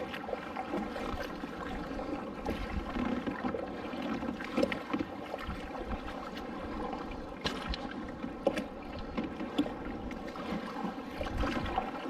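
Water splashing and lapping around a sit-on-top kayak under paddle, as the paddle blades dip and small waves slap the hull. There are irregular sharper splashes every second or so over a steady wash of moving water.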